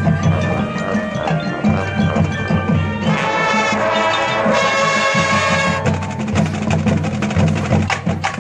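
High school marching band playing its field show, with mallet percussion prominent. The ensemble sound fills out from about three seconds in, and sharp percussion strikes come thick over the last couple of seconds.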